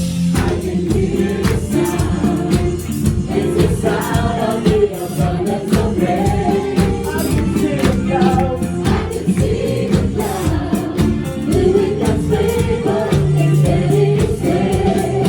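Live gospel worship music: a choir singing over a band with a steady beat.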